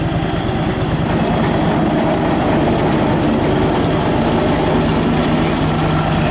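Engine of a Turner Mills band sawmill running steadily at a loud, even pace.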